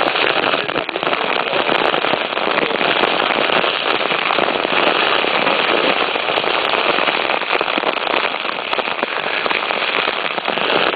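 Waterfall water falling and splashing: a loud, steady hiss of pouring water.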